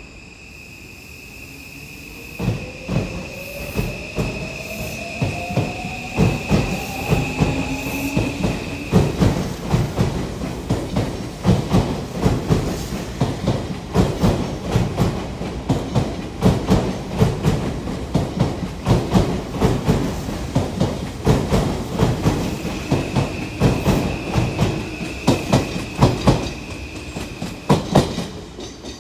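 Odakyu 30000-series EXEα Romancecar electric train pulling out of the station. Its motor whine rises steadily in pitch as it picks up speed over the first several seconds. Then the wheels clack rhythmically over the rail joints as the cars pass, with a steady high whine at the start and again near the end.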